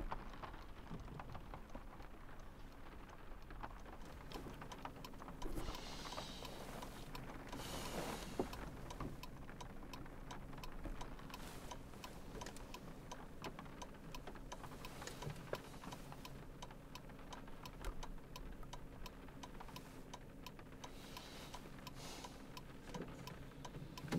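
Faint rain pattering on a car's roof and windows, heard from inside the car, with scattered drops ticking irregularly. A low steady hum joins in about four seconds in.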